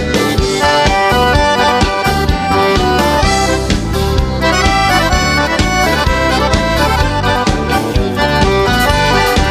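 Gaúcho dance music played live by a band, an accordion carrying the melody over a steady bass-and-rhythm accompaniment in an instrumental break between verses.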